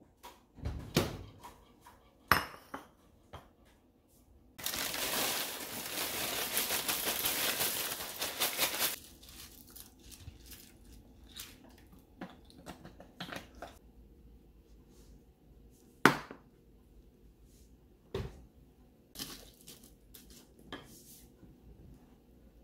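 Breakfast made at a kitchen counter: knocks and clinks of a ceramic bowl being handled, then dry cereal rattling into the bowl for about four seconds, a quieter pour of milk from a carton, and a few sharp knocks of a spoon against the bowl.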